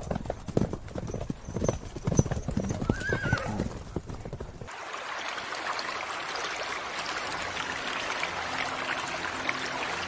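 A herd of horses galloping, hooves pounding the ground in a rapid uneven patter, with a short wavering whinny about three seconds in. About five seconds in the sound cuts to a steady even hiss.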